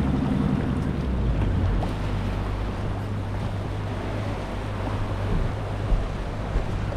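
Boat's outboard motor running steadily at low speed as the boat nears the shore, over water wash and wind noise on the microphone, with a light thump near the end.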